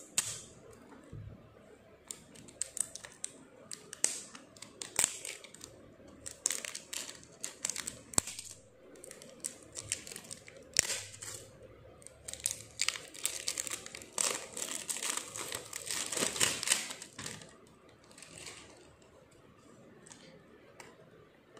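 Clear plastic wrap being picked at and peeled off a cardboard eyeshadow palette box: irregular crinkling and crackling, densest and loudest about twelve to seventeen seconds in, then thinning out.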